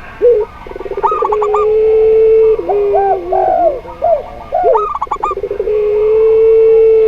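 Overlapping cooing of zebra, spotted and ringneck doves. A long, steady low coo is held for about a second and a half, twice. Between and over these come quick stuttering higher-pitched notes and short rising and falling coos.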